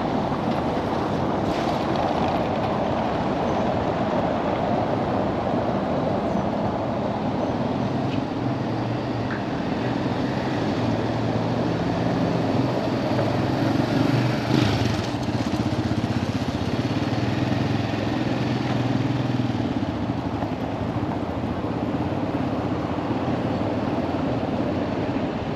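Town-square street ambience with road traffic: a steady wash of noise, with a vehicle's engine hum rising and falling through the middle and a brief louder rush about halfway through.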